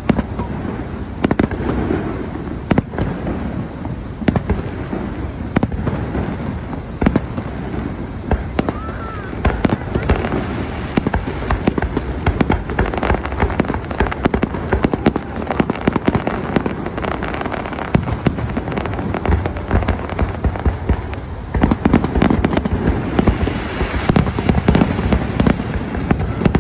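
Fireworks display: a dense run of booming bursts and crackling, with the bangs coming thicker and louder in the last few seconds.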